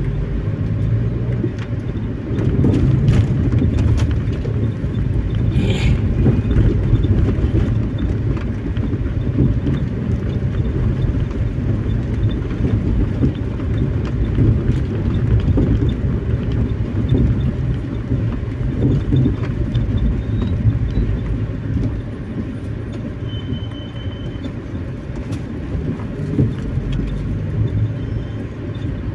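Steady low rumble of a car on the move: engine and tyre noise on the road, with a single sharp knock about six seconds in.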